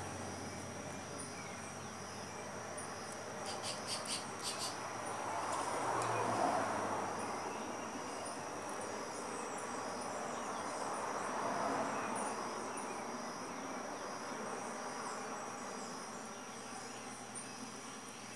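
Steady, high-pitched chorus of insects, with a quick run of clicks about four seconds in. A soft rushing noise swells up and fades away twice.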